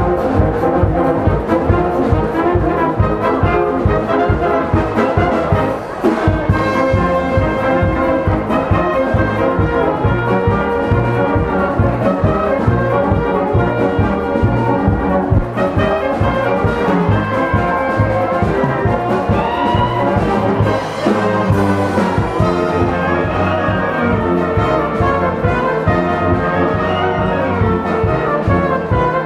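Brass and wind band of clarinets, saxophones, trumpets and tuba playing a tune live, over a steady beat from bass and drums.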